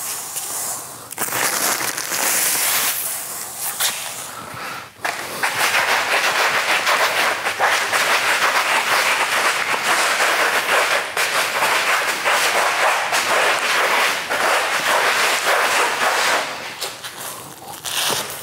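A vinyl plank's textured surface being scraped hard and fast with a tool in a scratch test, a dense crackling scratch. It comes in short spells at first, then runs steadily from about five seconds in and tapers off near the end.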